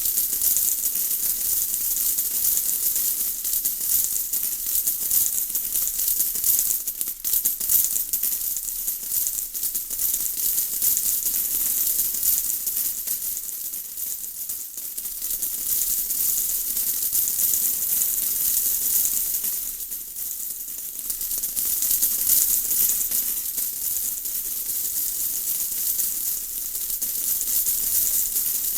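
Steady rain falling: a dense, even patter of raindrops, mostly high-pitched hiss, easing briefly twice before filling back in.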